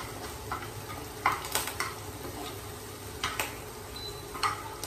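Chicken pieces sizzling in oil in a frying pan while a metal spoon stirs them, clinking and scraping against the pan a few times.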